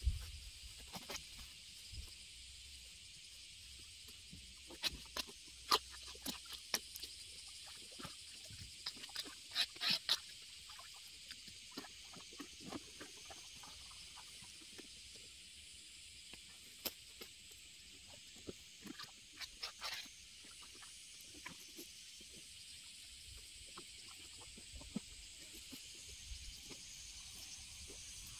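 Grass being cut by hand with a sickle and pulled from a ditch bank: scattered short rustles and snips, coming in clusters, over a steady high hum of insects.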